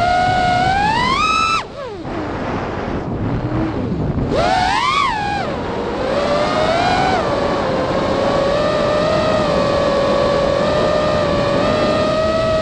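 FPV quadcopter's brushless motors and propellers whining, picked up by the onboard camera: the pitch climbs with throttle about a second in, cuts off sharply near two seconds, surges and falls again around five seconds, then holds a steady hum with wind noise on the microphone.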